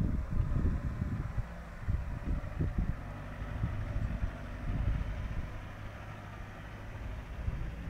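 Mitsubishi L200 pickup's engine running at low revs as it crawls down a steep dirt slope and rolls on slowly, with wind buffeting the microphone in irregular low gusts.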